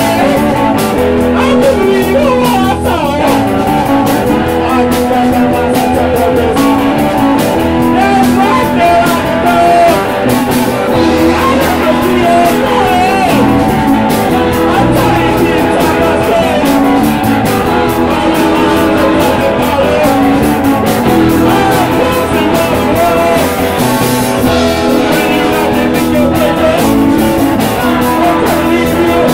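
Punk band playing live: electric guitar, bass guitar and drum kit, with a singer's voice over them.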